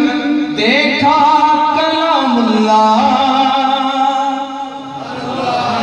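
A man's solo voice singing a naat, the Urdu devotional poem in praise of the Prophet, in long held notes that slide from one pitch to the next.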